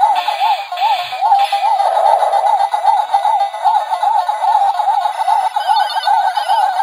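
Miniature Pac-Man arcade cabinet playing its electronic ghost siren, a tone sweeping up and down about three times a second, over other chirpy 8-bit game bleeps. A second, higher wavering tone joins about five seconds in.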